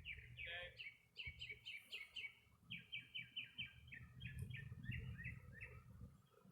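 A songbird singing a long, faint run of quick repeated chirping notes, about three or four a second, trailing off near the end.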